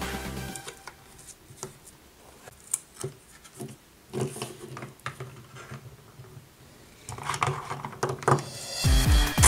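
Scattered light clicks and knocks of hard plastic toy track pieces and a toy monster truck being handled and set down. Background music fades out at the start and comes back about two seconds before the end.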